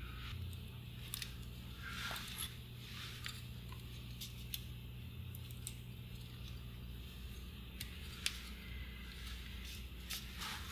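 Small irregular clicks and light scrapes of hands handling a transistor radio's circuit board and speaker assembly, with one sharper click about eight seconds in, over a steady low hum.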